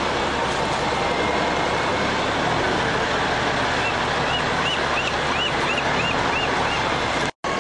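Steady noise of heavy vehicle engines running, with a quick run of about eight short, high chirps partway through. The sound drops out abruptly for a moment near the end.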